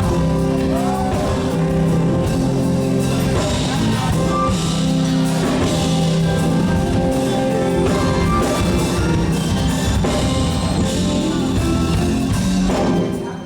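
Live gospel band playing an instrumental introduction: guitar and drum kit over long held chords. The band drops out briefly near the end.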